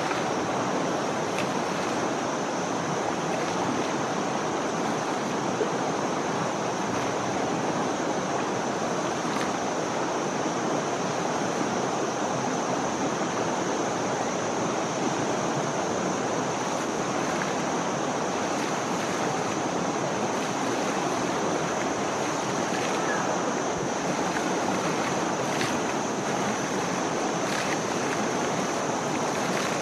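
River water running and splashing steadily as Asian elephants wade and play in it, with a thin, steady high-pitched hum above the water noise.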